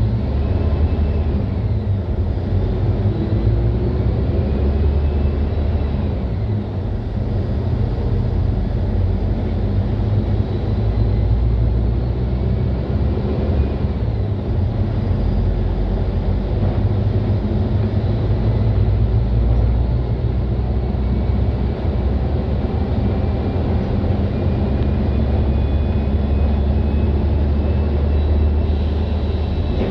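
Mercedes-Benz OF-1721L bus's front-mounted four-cylinder diesel engine running under way, a steady low rumble. A faint high whine rises and falls over it several times.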